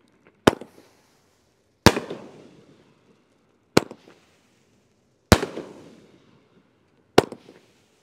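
A 12-shot 500-gram consumer firework cake firing, with five sharp bangs about one and a half to two seconds apart. Each bang is followed by a fading rumble.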